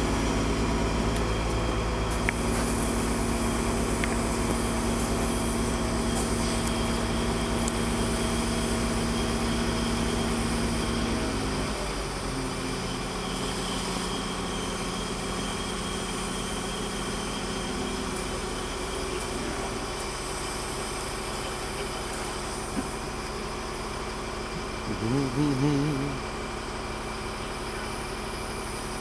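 Mobile crane's engine running steadily as it lifts and swings a hot tub. Its note steps down to a lower, quieter run about twelve seconds in. A brief wavering tone rises over it a few seconds before the end.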